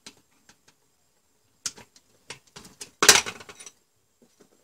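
Small clicks and knocks of a screwdriver and electrical wire being handled against a plastic breaker panel, with a louder rustling scrape about three seconds in as a cable is moved across it.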